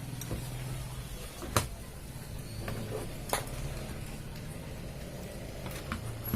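Sharp clicks of hand tools working on a circuit board, two louder ones about a second and a half apart, as the 3807 part is taken out of a CRT TV's power-supply board, over a steady low hum.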